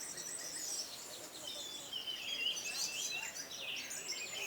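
Orange-headed thrushes (anis merah) singing, several birds at once, with varied rapid chirps, whistled glides and trills overlapping without a break.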